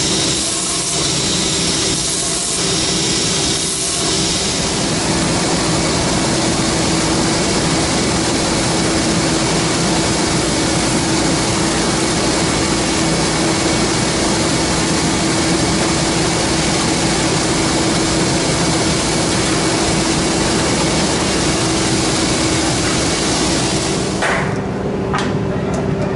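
A pocket-knife blade held against a spinning grinding wheel and then a polishing wheel: a steady, loud rush of abrasion over a constant motor hum. About 24 seconds in the wheel noise stops and a few light hammer taps ring out as the assembled knife is struck on a small anvil.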